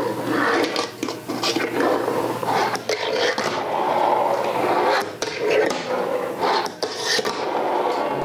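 A fingerboard's wheels rolling and its deck and trucks scraping over wooden surfaces, a plywood ramp and a wooden tabletop, with scattered small clicks as the board is pushed and set down.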